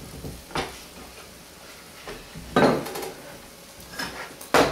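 Kitchen clatter: a few knocks and clunks of pans, lids and utensils being moved about on the counter and griddle, with a sharp, loud knock near the end.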